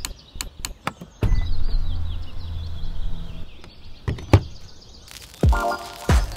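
Light clicks and knocks with birds chirping faintly behind, then a low hum for about two seconds. About four seconds in, a charging plug goes into an electric car's port with a sharp click. A short pitched sound and another click follow near the end.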